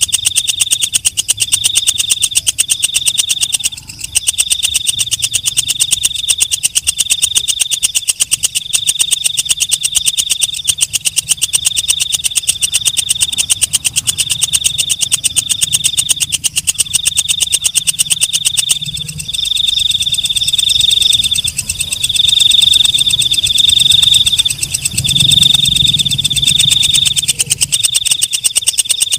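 Green leaf katydid (walang kecek, a night-singing bush cricket) singing: a high, rapid buzzing trill in phrases of about a second with short breaks between. The phrases grow longer and louder in the second half.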